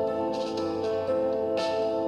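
Calm instrumental background music: held notes that change every second or so, with a soft high swish about every second and a half.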